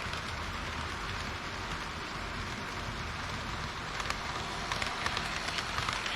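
HO-scale model train running on its track, heard close up: a steady rushing noise of wheels and motor, with a run of sharp clicks from about four seconds in.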